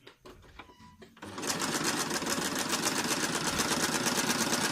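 Usha Wonder Stitch sewing machine starting to stitch about a second in, then running at a fast, even rhythm. It is sewing the first side of a four-step buttonhole with the stitch length set near 0.5, a dense zigzag.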